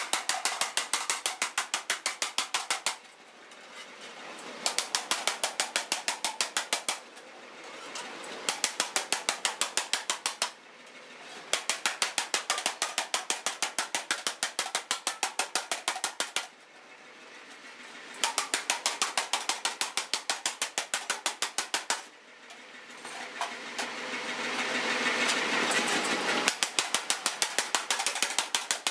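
A 15 kg power hammer pounding a steel hoe blade held in tongs, shaping its curve. It strikes in rapid runs of blows, several a second, broken by short pauses in which the machine runs without striking.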